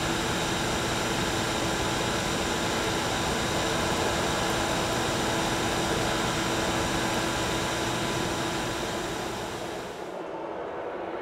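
Homemade vacuum's small motor and fan running steadily: a steady whine over a rush of air as it draws through a PVC pipe nozzle along cardboard rails. Near the end the sound drops and loses its hiss.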